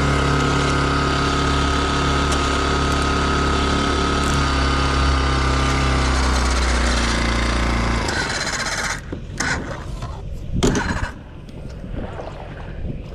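A small 4-horsepower Chinese outboard motor runs steadily, drops in pitch as it is throttled back, and cuts out about eight seconds in. A few irregular knocks and clatter follow, with one sharp knock a couple of seconds after the motor stops.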